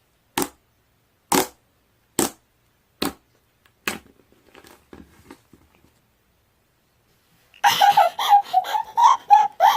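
Slime popping: five sharp pops about a second apart, then faint crackling. Near the end a loud, high, wavering sound begins.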